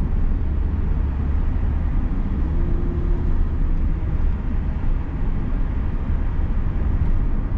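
Hyundai Azera's 3.0 V6 running during a road test, heard as a steady low rumble with road noise. The engine runs rough though it no longer misfires after new spark plugs and coils.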